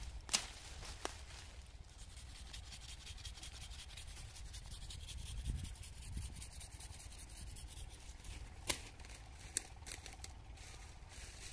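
Rustling and rubbing noise over a low wind rumble, with a few sharp clicks: one just after the start and two around nine seconds in.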